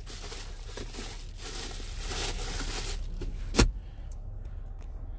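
Rustling and scraping handling noise as the phone is moved around the car's centre console, then one sharp knock about three and a half seconds in.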